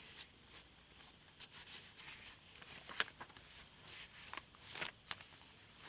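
Paper pages and cards of a handmade junk journal being handled and turned: faint rustling with a few light ticks and taps about halfway through and again near the end.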